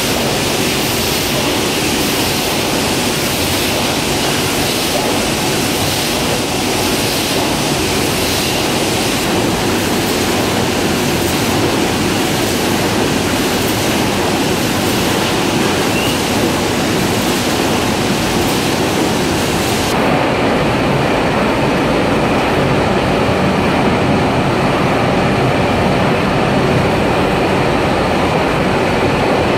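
Crabtree tin plate printing line running: a loud, steady mechanical din with a hiss on top. The hiss drops away about two-thirds of the way through, while the rest carries on.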